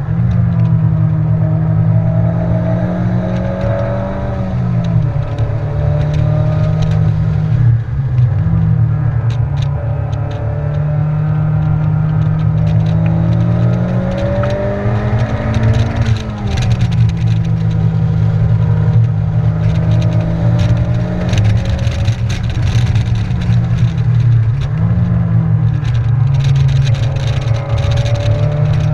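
Honda Civic's four-cylinder engine heard from inside the cabin while lapping a race track, its pitch climbing under throttle and dropping sharply a few times (around 5, 8, 16 and 25 seconds in), with steady road and wind noise.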